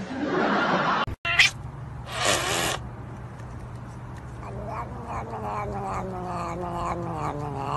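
Short noisy bursts and a sharp knock in the first few seconds, then a cat's long, drawn-out cry that slowly falls in pitch as it chews on a person's finger.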